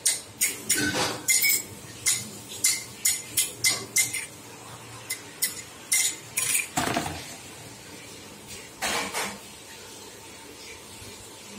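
Plastic tray knocking and clattering on a marble floor: a rapid, irregular run of sharp clacks for about seven seconds, then two louder knocks about two seconds apart.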